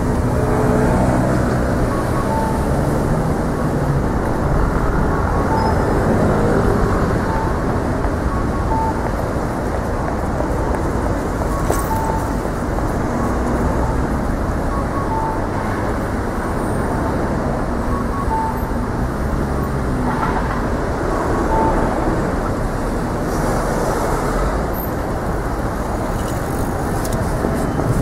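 Steady city street traffic noise, an even rumble of passing vehicles, with short faint high tones dotted through it about once a second.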